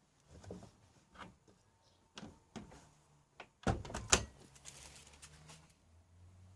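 Knocks and clicks at a Panasonic NA-147VB2 front-loading washing machine, with two heavy clunks about four seconds in, as of its door being shut, then a low steady hum that stops suddenly near the end.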